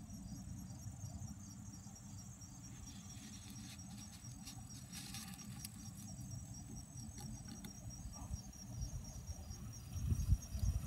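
Insects calling in a steady, rapid pulsing trill, over a low rumbling noise that grows louder near the end.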